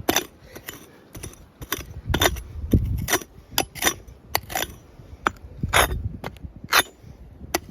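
About a dozen irregular, sharp clinks and knocks of stones on rocky ground while a faint metal-detector target is dug and checked. The rocks being handled are suspected of being a hot rock.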